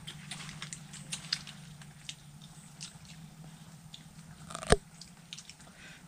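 Cooked hermit crab shells being cracked, bitten and chewed, making scattered small crunches and clicks, with one sharp loud crack about three-quarters of the way through. A steady low hum runs underneath.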